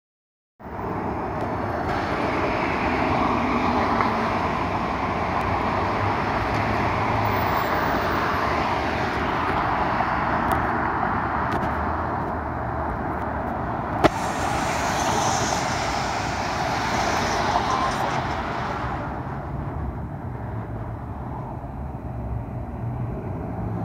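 Cadillac ATS-V's twin-turbo V6 accelerating past amid steady street traffic, with one sharp click a little over halfway through. The noise eases near the end.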